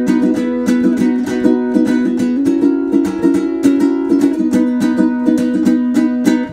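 Background music: a plucked-string tune of quick, evenly spaced notes, changing chord about two seconds in and dropping away at the very end.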